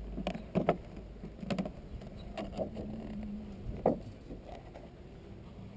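Clear plastic cover sheet being pried up with a hive tool and peeled off the top bars of a bee nucleus hive: a run of crackles and clicks, the sharpest about four seconds in. A faint steady hum of the bees sets in about two seconds in.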